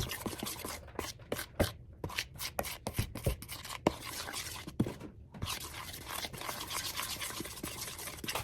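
Spoon stirring thick chocolate chip cookie dough in a mixing bowl: irregular scrapes and small knocks against the bowl as the chips are worked into the stiff dough.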